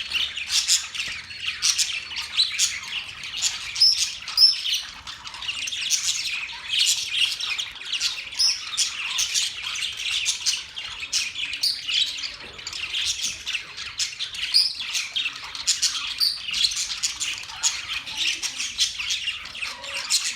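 Parrots chirping and squawking without a break, many short, high calls overlapping one another.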